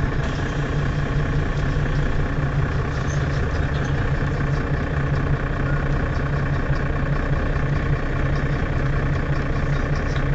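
Mercedes-Benz Citaro city bus standing at a stop with its engine idling, a steady low hum.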